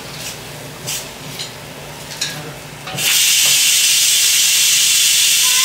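Kitchen tap turned on and water running steadily into a steel sink, a loud even hiss starting suddenly about three seconds in, after a few light clicks and rustles of a plastic bag being handled.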